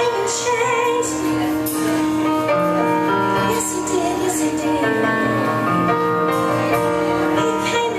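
Live worship band performing: several singers over sustained keyboard and guitar chords with drums, the voices holding long, wavering notes.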